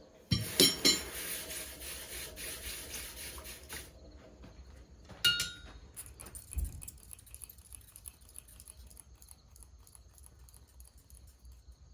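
Metal clanking at the start, followed by about three seconds of hissing clatter that stops suddenly. A single short metallic ring comes about five seconds in, then crickets chirp faintly.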